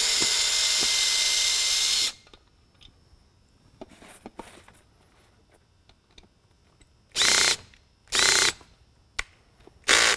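Cordless Makita drill/driver backing out the Phillips screws that hold a beacon's polycarbonate dome: one steady run of about two seconds at the start, then two short half-second runs and a brief blip near the end.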